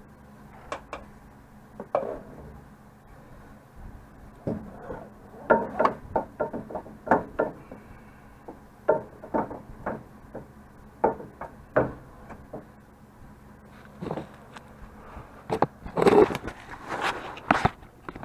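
Irregular metal knocks, clanks and scrapes as a replacement steering rack and pinion is worked into place under a 1997 Honda CR-V. There is a rapid cluster of knocks near the end.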